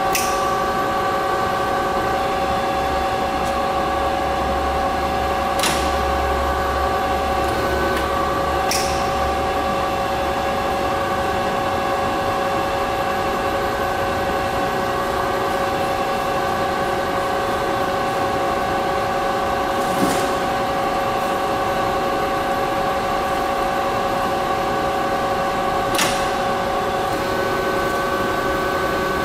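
Warner & Swasey #5 ram-type turret lathe running under power, a steady gear whine of several fixed tones. A deeper hum comes in for several seconds near the start, and a handful of sharp clicks mark the apron levers being thrown.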